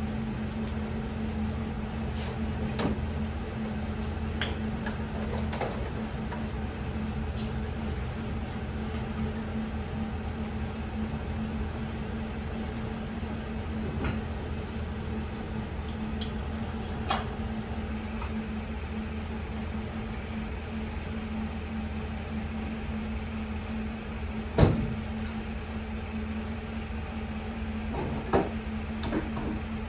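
A steady mechanical hum, with scattered clicks and knocks of metal parts on a truck-mounted snowplow frame being handled. One sharp knock about 25 seconds in is the loudest.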